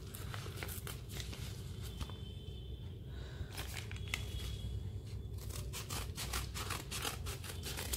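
Paper mailer envelope crinkling as it is handled, then scissors cutting along its edge in short runs of crisp snips and crackles from about three and a half seconds in.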